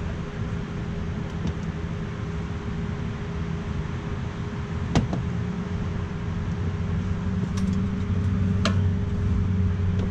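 Plastic push pin on a fender liner clicking as a pry tool works it loose: one sharp click about five seconds in and a few more near the end. A steady low hum runs underneath.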